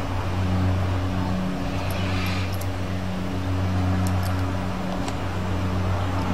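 Steady low hum over an even hiss, with a few faint light ticks.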